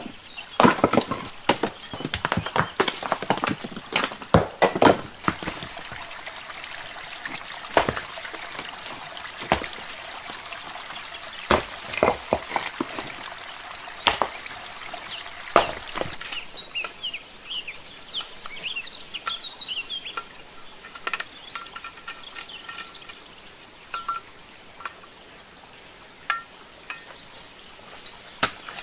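Rocks knocking and clacking against one another as stones are set by hand into a stone step path, sharp knocks coming irregularly and most often in the first half. A bird chirps a few times a little past the middle.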